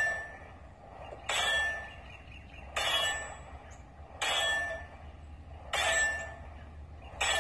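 Rapid 9mm pistol fire from a SCCY CPX2, five shots about a second and a half apart. Each shot hits a steel target, which rings with a metallic ding that dies away before the next shot.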